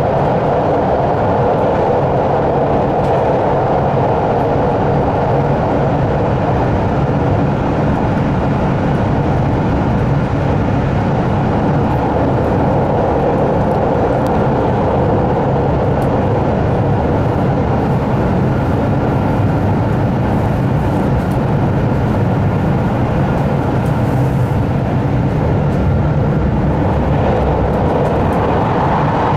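Steady running noise inside a JR Hokkaido 789 series limited express motor car at an even speed: a dense, unbroken rumble of wheels on rail with a few faint steady tones above it, closed in by a tunnel.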